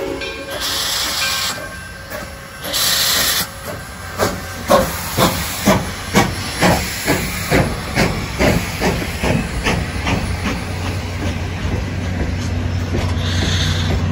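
Steam locomotive starting off: two loud bursts of steam hiss, then exhaust chuffs at about two a second, quickening slightly, giving way to a steady low rumble as the train rolls past.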